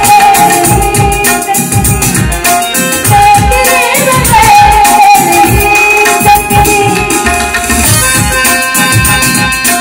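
A woman singing long, bending held notes to tabla and harmonium accompaniment. The voice stops about eight seconds in, leaving the tabla and harmonium playing.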